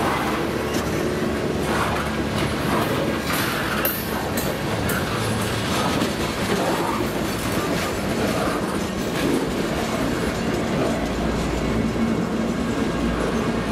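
Freight train cars rolling past close by, a steady rumble with wheels clattering over the rail joints. A brief high-pitched wheel squeal comes about four seconds in.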